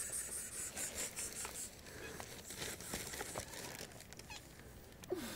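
Street cats around a person's legs being petted: rustling and crinkling in the first couple of seconds, then a short low cat call near the end.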